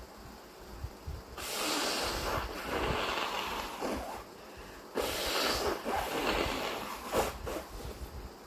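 A person breathing hard and snorting through the nose in two long, noisy stretches, with a short, sharp burst about seven seconds in.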